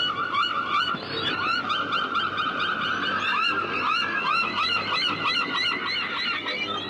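A flock of gulls calling over one another: many short cries overlapping densely, with a longer drawn-out call running from about a second in to past the middle.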